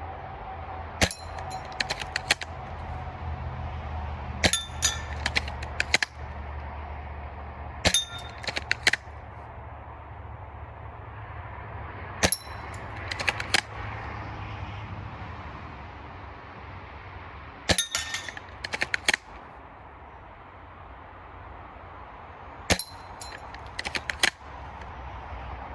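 Cyma VSR-10 spring-powered bolt-action airsoft rifle fired six times, a few seconds apart. Each shot is a sharp crack followed by a quick run of clicks and clanks as the bolt is worked and BBs hit metal targets.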